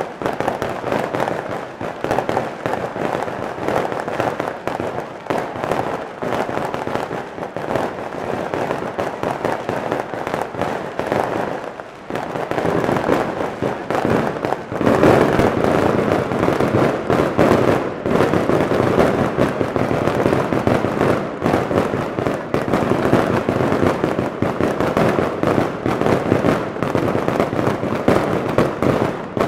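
Fireworks going off in a dense, continuous crackle of rapid bangs and firecracker reports. The barrage dips briefly near the middle, then comes back louder.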